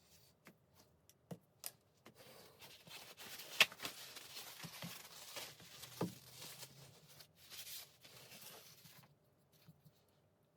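Applicator rubbing blacking solution onto small steel clamp parts by hand: a faint scrubbing that starts about two seconds in and stops near the end. A few light clicks come first, and there are two sharper knocks partway through.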